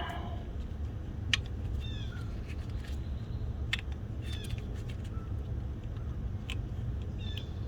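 A few sharp metallic clicks from a spring hose clamp being squeezed and fitted, over a steady low rumble. Several short falling chirps from an animal come through now and then.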